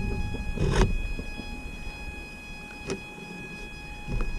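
A few light knocks and taps on an RC floatplane at rest on the water, its electric motor stopped, over a faint steady high whine and a low rumble.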